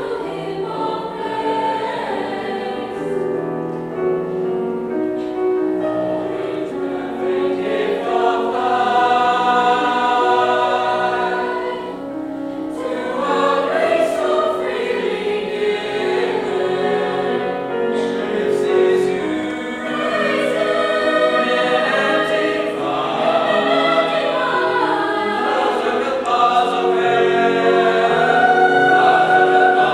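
A mixed school choir of boys' and girls' voices singing a sacred anthem in parts, with a brief pause between phrases about twelve seconds in.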